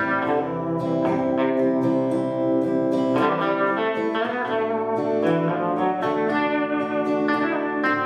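An acoustic guitar and an electric guitar play together instrumentally, with strummed chords and ringing picked notes and no vocals.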